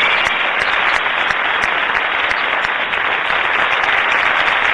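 Large audience applauding with steady, dense clapping.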